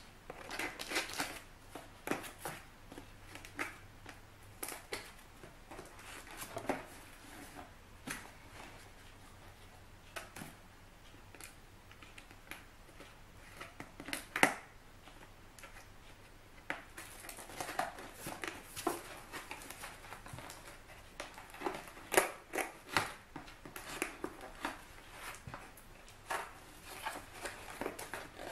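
Scissors snipping through packing tape and cardboard on a parcel, with irregular snips, clicks and rustling of the box as it is handled; the sharpest snips come about fourteen seconds in and around twenty-two seconds.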